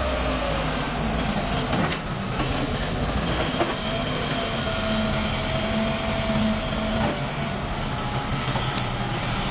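Heavy machinery running steadily: a dense rumble with a steady whine over it and a few clanks.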